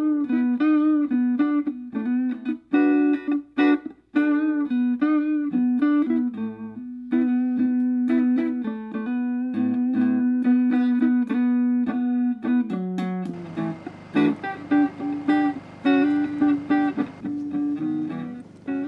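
Guitar music, a run of plucked single notes. About two-thirds of the way through, the sound grows fuller and denser.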